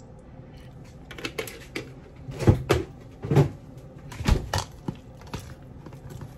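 A metal spoon stirring thick wet batter in a plastic tub, knocking and scraping against its sides in irregular strokes, the loudest a little past two and a half, three and a half, and four seconds in.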